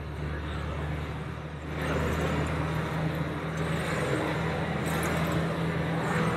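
Tour bus on the move: a steady low engine drone under road and wind noise, which grows louder about two seconds in.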